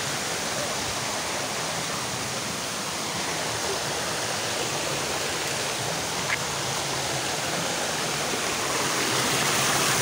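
Steady rushing of a waterfall and a shallow stream running over rocks, growing a little louder near the end, with one brief click about six seconds in.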